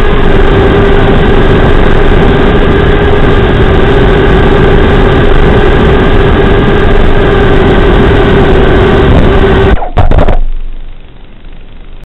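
Motors and four-bladed props of a 2.5-inch FPV quad with Xing 1404 4500kv motors, heard through the video transmitter's built-in microphone: a loud, steady buzz with a steady whine. It cuts out suddenly about ten seconds in, leaving fainter noise that dies away.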